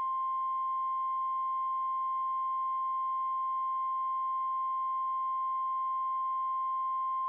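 Emergency alert attention tone: one steady, unbroken tone of about 1 kHz with faint overtones, the single-tone alarm of a National Weather Service warning broadcast.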